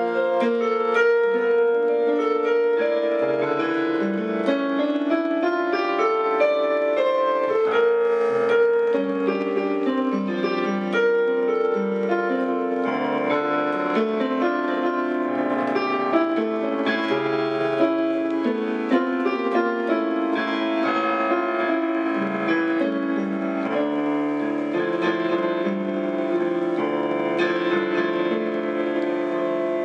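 Solo piano music played with both hands on an electronic keyboard: a continuous passage of notes over a lower bass line.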